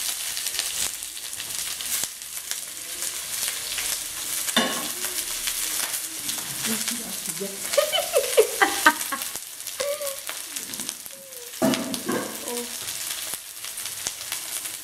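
Chopped onion and garlic sizzling as they fry in hot oil in a kadai, a steady hiss, with brief voices in the background about halfway through.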